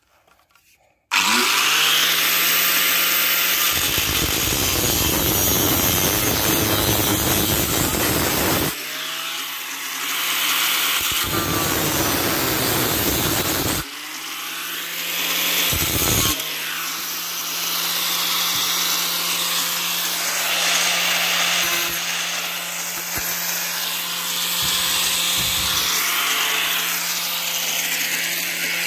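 Angle grinder starting up about a second in and cutting through a rusty steel exhaust pipe, its motor running steadily, with rougher, louder stretches of disc-on-metal cutting, the longest between about four and nine seconds and again from about eleven to fourteen seconds.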